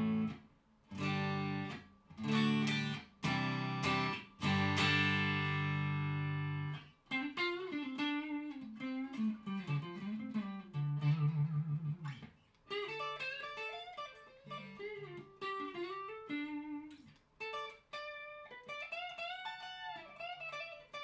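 Electric guitar, a Fender Stratocaster with Fender Vintage Noiseless pickups, played dry with no compression. A few strummed chords in the first seven seconds or so, the last one left ringing, then single-note lines with bent notes near the end.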